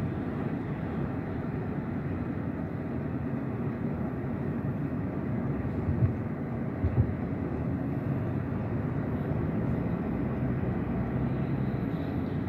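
Steady low rumble of a car travelling at highway speed, its tyre, road and engine noise heard from the car. Two brief low thumps come about six and seven seconds in.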